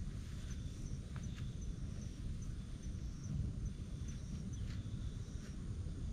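Outdoor ambience: a steady low rumbling noise, with faint high-pitched chirps repeating evenly about two and a half times a second that stop about two-thirds of the way through.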